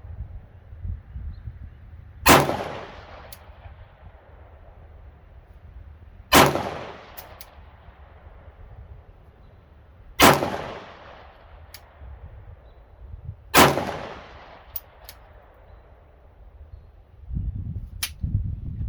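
Four slow, deliberate shots from a Glock 19 Gen 5 9mm pistol, about four seconds apart, each with a short echo. Wind buffets the microphone, most heavily near the end.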